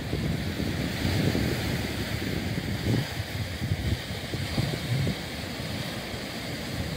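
Small sea waves breaking and washing over rocks and up a sandy beach, with wind buffeting the microphone in uneven gusts.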